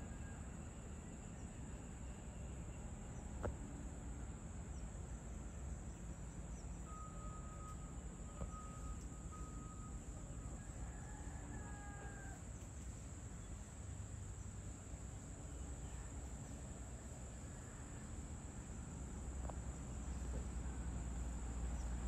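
Steady high-pitched insect drone of crickets over a low rumble, with a few short chirps about halfway through. The rumble grows louder near the end.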